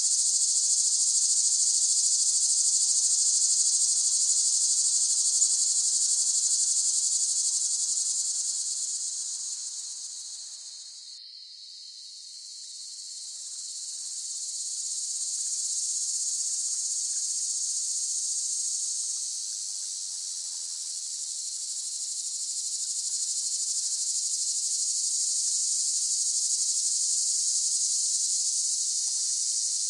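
Cicadas shrilling in a steady, high-pitched buzz, which fades briefly about ten seconds in and then swells back up.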